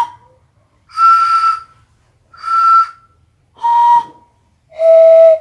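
Tuned bamboo kite-flute set (a D30 'chuông đẩu' bell-type sáo diều of three tubes) blown by mouth in four short puffs of about half a second each. Each puff sounds several whistle tones together with breath noise, giving a small bell-like chord, and the pitch is lower on the last two puffs.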